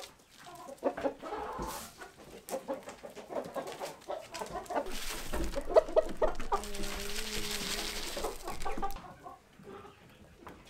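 Chickens clucking, many short clucks, with a longer held call about seven seconds in. A steady hiss runs underneath from about five to nine seconds in.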